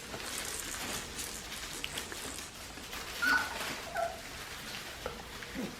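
Young Australian Shepherd puppies giving a couple of short high squeaks about three and four seconds in, over soft rustling and small clicks of movement.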